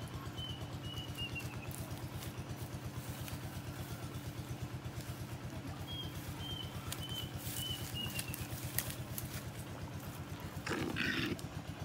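A small engine running steadily with an even, fast low pulsing, while a bird gives two runs of short high chirps. Near the end a short, louder burst of noise cuts in.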